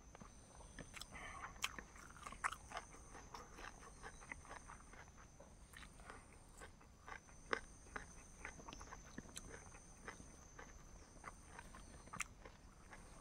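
A person chewing and biting food: irregular crunchy clicks, a few sharper ones standing out.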